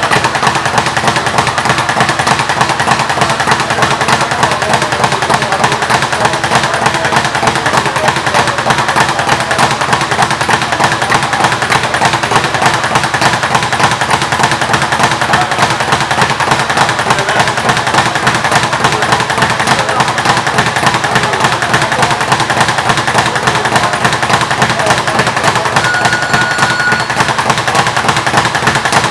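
Speed bag being punched in a fast, unbroken rhythm of sharp impacts, the bag rebounding off the wooden board of a First Rate Boxing speed bag platform.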